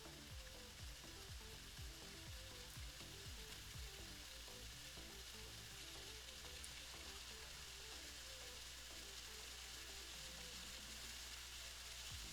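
Faint background music under a steady hiss.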